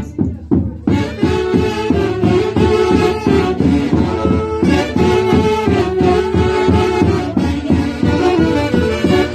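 Live Peruvian folk orchestra from the Canipaco valley playing a lively traditional tune led by wind instruments over a steady rhythm. The upper parts drop out for about half a second just after the start, then the full band comes back in.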